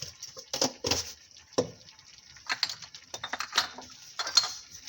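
Irregular light clicks and knocks of kitchen containers and utensils being handled while seasoning a dish, about eight or nine sharp taps spread unevenly.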